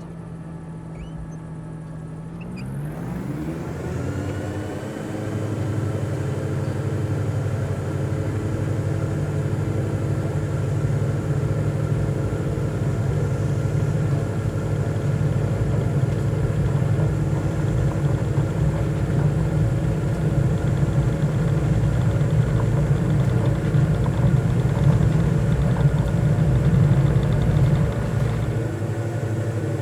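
A motor or engine running steadily. Its pitch rises about two to four seconds in and then holds.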